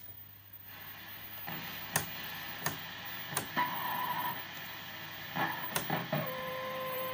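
Sharp clicks every second or so over a hiss from a 1966 Philco valve television being adjusted. Near the end a steady buzzing tone sets in.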